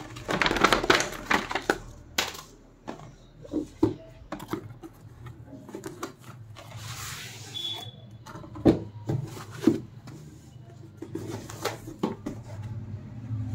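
Packaging being handled by hand: paper rustling densely for the first two seconds, then scattered scrapes, taps and knocks as a cardboard box and a foam insert are moved, with two sharper knocks past the middle.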